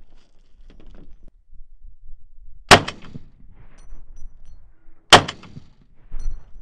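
Two single rifle shots about two and a half seconds apart, each sharp and loud and trailing off in a short echo.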